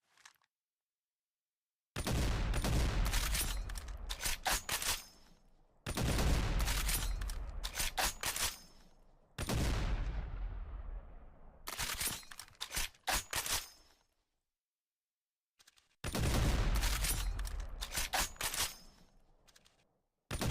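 Shotgun sound effect: a heavy blast about every four seconds, five in all, each dying away and followed by a quick run of sharp clicks, the last blast falling at the very end.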